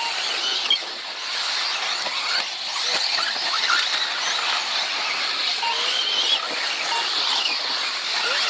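Several radio-controlled off-road race cars running round the track together, a steady high-pitched whine with short squeals coming and going.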